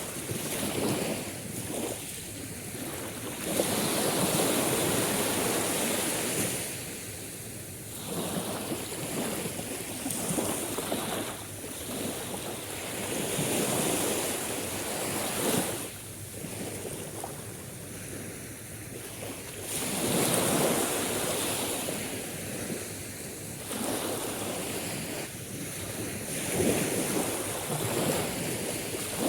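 Sea waves washing ashore, a steady hiss of surf that swells and falls back about five times.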